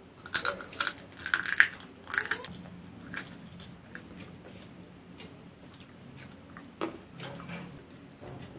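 Popcorn being bitten and chewed, taken up by mouth from a pile on newspaper. There is a run of loud, crisp crunches in the first two seconds or so, then quieter chewing with a couple of single crunches.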